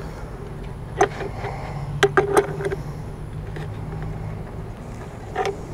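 A plastic breather fitting being screwed slowly into a plastic cold air intake tube, giving a few short clicks and creaks. A steady low hum runs underneath.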